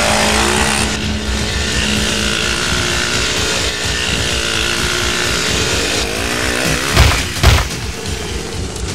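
Dirt bike engine running and revving as it rides away. Two sharp bangs come about seven seconds in, half a second apart.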